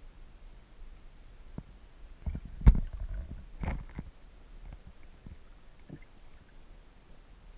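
Underwater sound of a flowing stream heard through a camera housing: a low steady rumble, with a cluster of knocks and clicks between about two and four seconds in, the loudest a single sharp knock.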